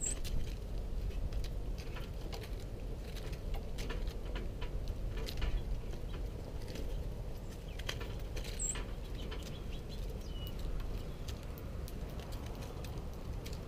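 Small birds pecking seed off a snowy wooden rail close to the microphone: a scatter of light taps throughout, with two brief high chirps, one at the very start and one a little under 9 seconds in.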